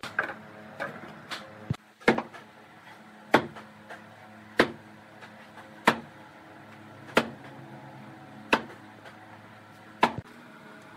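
Evenly spaced sharp blows on wood, about one every second and a quarter, over a steady hum.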